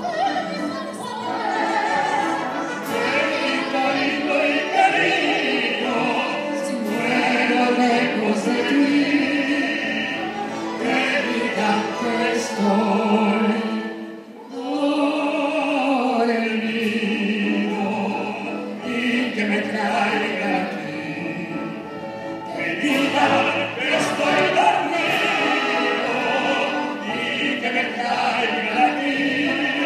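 Operatic solo singing with wide vibrato over a full orchestra with piano, a Mexican ranchera song performed live. The music dips briefly about halfway through, then the voices come back in.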